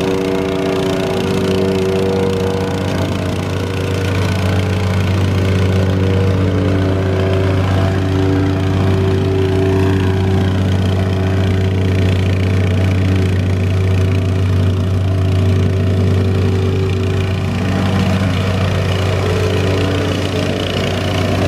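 Engine of a piece of heavy paving equipment running steadily at a constant speed, a loud, even low hum with no revving.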